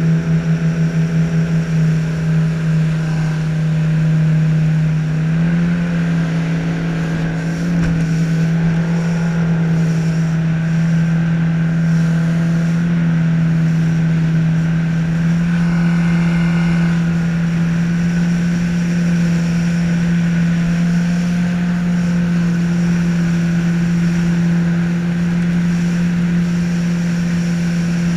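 Boat outboard motor running steadily at speed, a constant drone that wavers in level for the first couple of seconds and then holds even, with water rushing past the hull.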